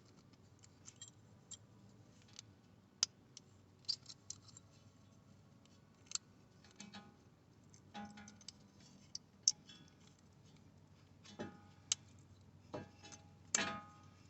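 Metal brake pad clips being worked off and onto the caliper bracket: scattered light clicks and ticks, with a few louder metallic clinks near the end that ring briefly.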